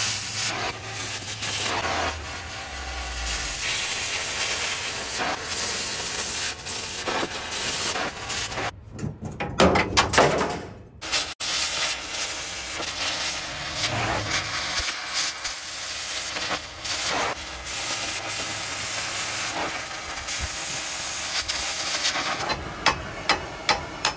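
Oxy-fuel cutting torch hissing as its jet blows through an old weld on the steel frame bracket. A few sharp metal taps from a hammer come near the end.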